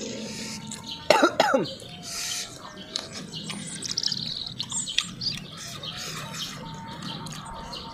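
A person coughing sharply about a second in, set off by eating very spicy chilli sambal, with birds chirping in the background.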